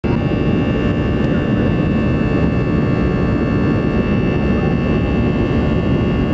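Steady jet engine and airflow noise heard inside a Boeing 747's passenger cabin in flight, with a thin steady whine above it.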